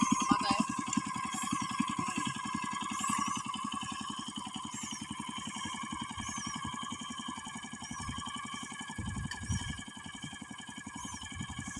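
ISEKI PC4 rice transplanter's small engine running steadily, with a faint high squeak repeating about every second and a half.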